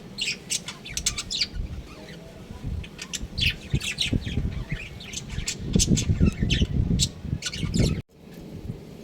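Budgerigars chirping and chattering in quick, short calls, with low rustling and bumping from about five and a half seconds in. The sound cuts off abruptly about eight seconds in, then resumes more quietly.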